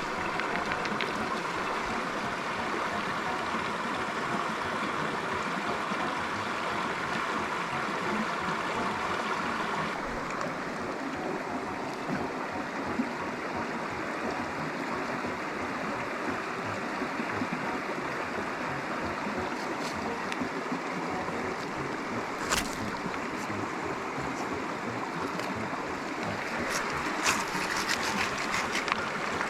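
Steady rushing of running water, like a stream. Its tone changes abruptly about ten seconds in, and a few short sharp clicks sound near the end.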